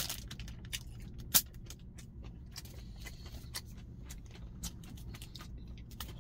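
Plastic gimbap wrapper crinkling and crackling as it is torn and handled, with a louder snap at the start and another about a second and a half in. A steady low hum runs underneath.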